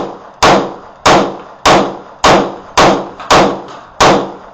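A Magnum Research 1911 pistol in 10mm firing Federal HST rounds in a steady string, about one shot every 0.6 s, each crack trailing off briefly. The pistol cycles through the magazine without a malfunction.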